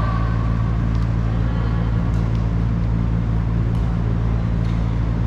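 A steady low mechanical hum, with a few faint sharp clicks over it.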